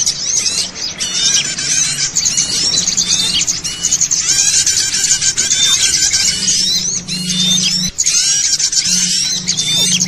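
A dense chorus of many small songbirds chirping and twittering at once, busy and overlapping with quick rising and falling notes. It is a bird-lure ('pikat') recording, the sound of a noisy flock of small birds used to draw wild birds in.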